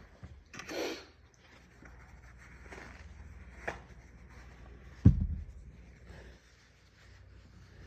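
Quiet room sounds: a short breathy rush of air under a second in, a sharp click a little after three and a half seconds, and a loud thump about five seconds in.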